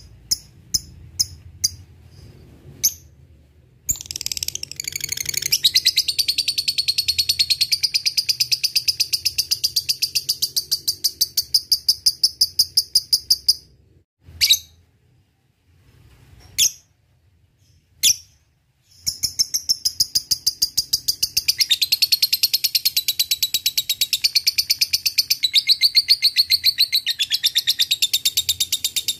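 Lovebird calling: a few sharp, separate ticking notes at first. Then a long, fast chattering trill of rapidly repeated high notes (ngekek), broken off after about ten seconds by a few single calls. The chattering trill resumes and runs on.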